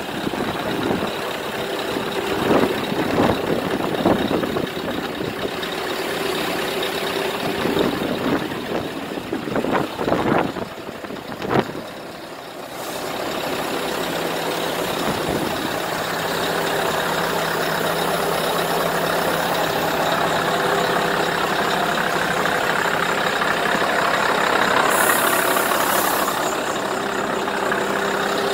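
Scania R500's V8 diesel idling steadily. Uneven buffeting noise on the microphone covers the engine over the first dozen seconds, and a short hiss comes near the end.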